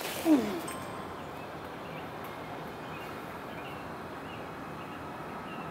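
A short shouted exclamation from the batter just after a hit, falling in pitch. It is followed by several seconds of steady open-field background noise.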